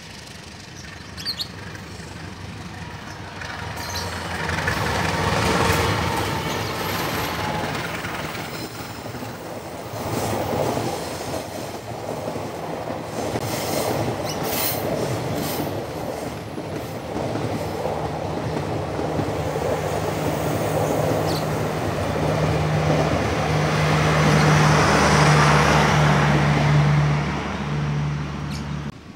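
A diesel-hauled passenger train passing close on the track. The noise builds to a first peak about five seconds in as the locomotive goes by, then the coaches' wheels clatter and squeal over the rails, with a steady low hum growing stronger near the end.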